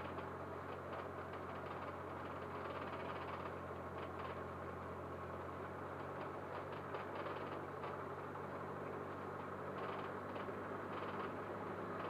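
Cessna 152's four-cylinder Lycoming piston engine and propeller droning steadily, heard from inside the small cockpit.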